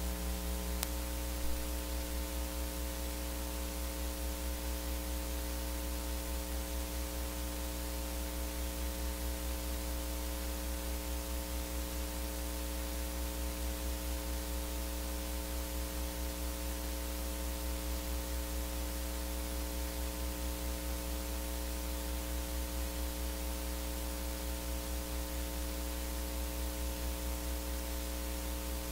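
Steady electrical mains hum with its overtones over a constant static hiss, with a faint click or two about a second in.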